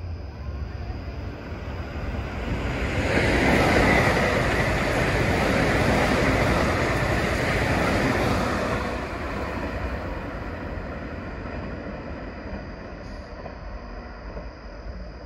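Keikyu Main Line electric train passing through a station without stopping: a rush of wheels on rail that builds over a couple of seconds, stays loud for about six seconds, then dies away.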